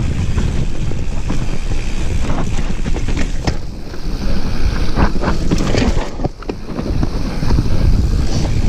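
Wind rumbling on the microphone of a camera riding on a mountain bike as it descends a dirt singletrack, with the tyres and frame rattling and knocking over bumps in the trail. The knocks come thickest in the middle, with a brief lull a little after six seconds.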